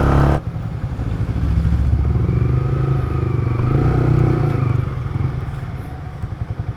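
Yamaha R15 V3's 155 cc single-cylinder engine running as the motorcycle is ridden, its note easing off and quietening over the last couple of seconds as the bike slows.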